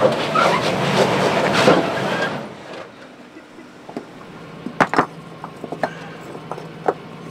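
Lexus GX470's V8 working under power as it strains on the rock ledge for the first two seconds or so, then settling to a steady idle. Over the idle come a few sharp clacks of rocks being stacked by hand under the front tire to help it up the ledge.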